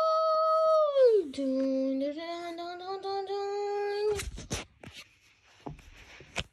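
A voice humming one long held note that drops sharply in pitch about a second in, then holds a lower, slowly rising note. It cuts off about four seconds in with a few knocks, and then it goes faint.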